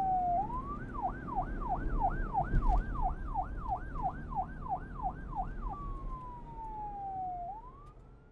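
Electronic police siren in fast yelp, rising and falling about two and a half times a second, then switching to a slow wail that falls and rises again. It fades near the end.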